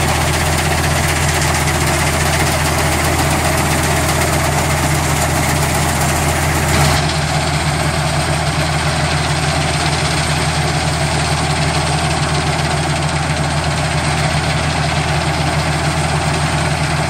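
Massey Ferguson 3660 GE tractor and its towed Volentieri-Pellenc 8050 harvester running steadily while harvesting olives, a deep, even engine drone. A brighter rushing hiss over it, from branches being shaken through the machine, drops away about seven seconds in.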